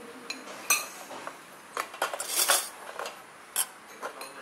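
Cutlery clinking against plates and bowls as food is served and eaten: a run of short, sharp clinks, the busiest and loudest cluster about two seconds in.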